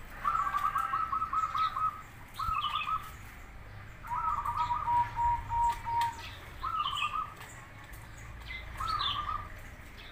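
Zebra dove (perkutut) singing its rapid, stuttering coo in five phrases. The first is the longest, and the third trails into a long held note. Fainter short high chirps come between the phrases.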